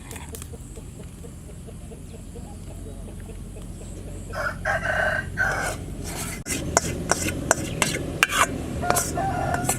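A rooster crows once, about midway, over a steady low rumble. After it comes a run of sharp clicks and knocks.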